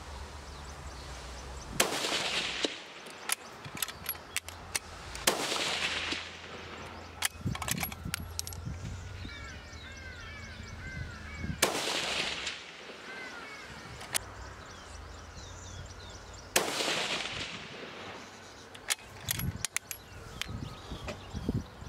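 Four shots from a 6.5 Creedmoor rifle fitted with a muzzle brake, a few seconds apart, each a sharp crack trailing off in about a second of echo. Birds chirp between the shots.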